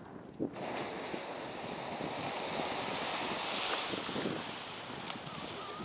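Strokkur geyser erupting: a rushing hiss starts suddenly about half a second in, swells to its loudest a little past the middle and eases slightly, as the eruption's steam and spray blow and rain down over the microphone.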